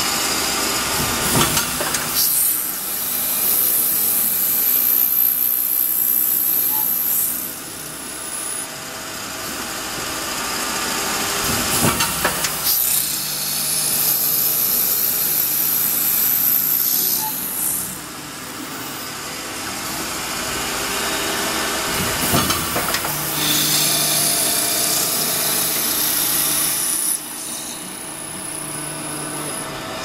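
Automatic padlock drilling machine running through its cycle: a knock as the rotary table indexes, then about five seconds of a high-pitched whine as the spindles cut into the padlock bodies, then a quieter spell. The cycle repeats three times, about every ten seconds.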